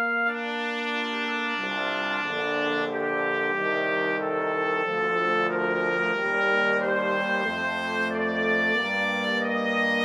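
Brass quintet (trumpets, French horn, trombone and bass trombone) played back from the notation software with sampled instruments, moving through sustained chords. Lower voices join about a second and a half in, and deep bass trombone notes come in around halfway.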